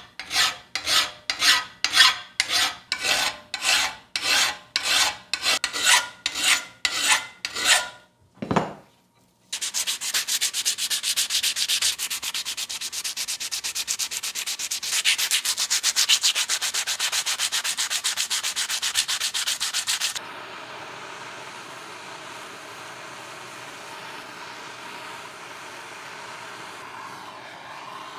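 Hand filing with a flat file on work clamped in a bench vise, about two rasping strokes a second for some eight seconds. After a short pause comes fast hand sanding of the steel sickle blade with abrasive paper for about ten seconds. It stops suddenly and gives way to a steady, quieter hiss.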